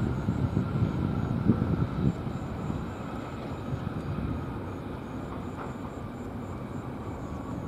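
Distant jet engine rumble from an Airbus A321neo's Pratt & Whitney geared turbofans as the airliner rolls along the runway. It is loudest in the first two seconds with a faint steady whine above it, then fades to a lower, steady rumble.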